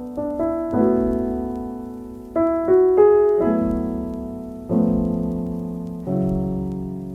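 Background chillhop music: a slow run of mellow piano chords, each struck and left to fade.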